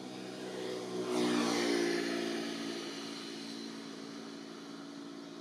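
Engine of a passing motor vehicle, growing louder to a peak about a second and a half in, its pitch dropping as it goes by, then fading.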